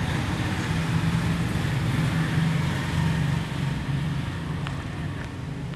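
Car engine running steadily, a low rumble, with two faint clicks about four and five seconds in.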